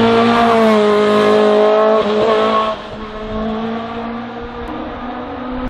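Racing car engine held at high revs as it drives past on a hillclimb course, a steady high engine note. A little under three seconds in it drops sharply in level and carries on quieter as the car moves away.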